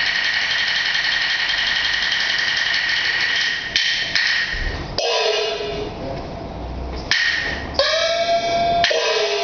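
Peking opera percussion band accompanying a stage fight: a sustained clashing of cymbals and gongs, then from a little before halfway a run of separate sharp strikes, each leaving a pitched gong tone ringing on.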